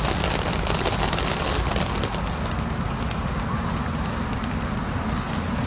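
Big Fireworks 'Lost World' (BF2517) firework fountain burning: a steady hissing spray of sparks with dense, rapid crackling.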